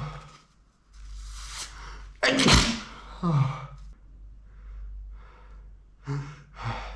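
A man with a head cold draws a long breathy inhale, then sneezes once, loud and sudden, about two seconds in, with a short voiced tail right after. Softer breathing follows, and quick gasping breaths begin near the end as the next sneeze builds.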